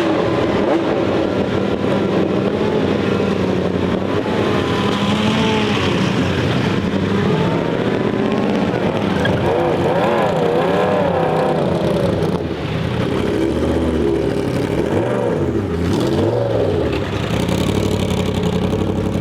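1934 Mercedes-Benz W25 racing car's supercharged straight-eight engine running loudly and being revved. Its pitch rises and falls over and over through the middle of the stretch.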